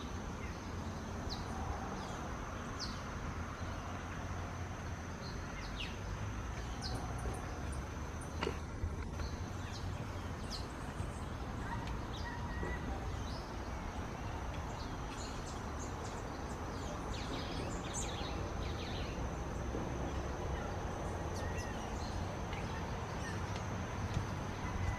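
Wild birds giving scattered short chirps and calls over a steady low rumbling background, with a thin, continuous high-pitched tone throughout.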